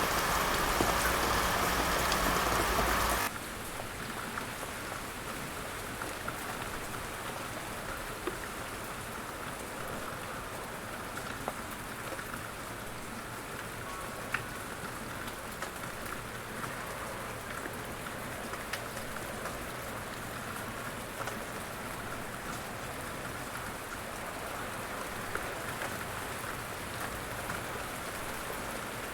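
Rain: a louder, denser downpour for the first three seconds cuts off suddenly into steadier, lighter rain, with scattered drops ticking through it.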